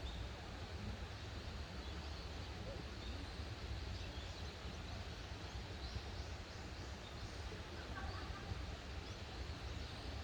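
Steady outdoor background noise, an even hiss over a low rumble, with a few faint high chirps about six to seven seconds in.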